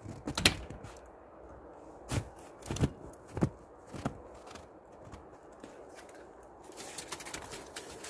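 A hand scooping and packing snow off the plastic lid of a wheelie bin: a series of short crunches and scrapes, with lighter crackles near the end.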